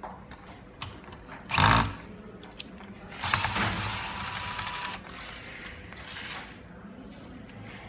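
Corded electric screwdriver driving screws into the metal strap of an LED light fixture: a short loud burst about one and a half seconds in, then a run of about two seconds with a steady whine, and another brief burst around six seconds in.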